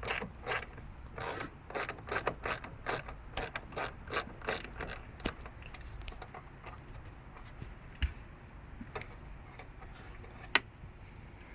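A T20 Torx driver clicking as it undoes the screws on the headlight trim: a quick, even run of small clicks, then sparser ones, with two sharper clicks later on.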